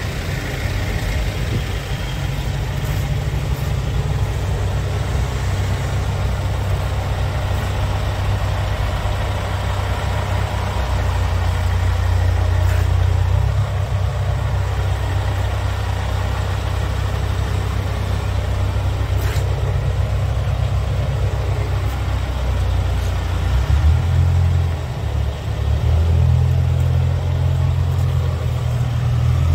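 Scania R tractor unit's diesel engine idling, a steady low rumble.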